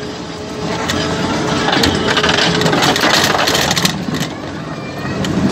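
Snail-shaped ride car rumbling and rattling along its track, with scattered clicks and knocks from the running gear.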